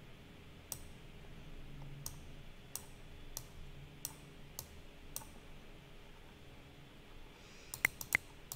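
Computer mouse clicking: single clicks spaced about two-thirds of a second apart, then a quick run of four or five louder clicks near the end.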